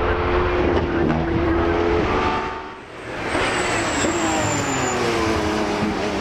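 Racing car engines running hard at high revs. The note holds steady at first, drops out briefly about three seconds in, then comes back on a different car whose pitch falls away and climbs again near the end, as if lifting off for a corner and accelerating out.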